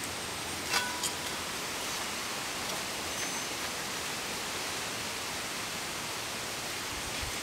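Ribbon pakoda strips deep-frying in hot oil in a metal wok, giving a steady sizzle. A metal slotted spoon clinks twice against the wok about a second in.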